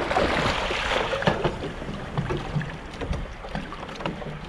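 Shallow sea water sloshing and splashing around bare legs and the aircraft's float, with a few scattered knocks as hands work on the airframe.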